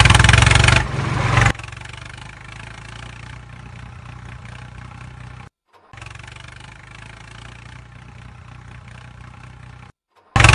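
An engine running, loud for about the first second and a half, then much quieter and steady, cut off by brief silences twice.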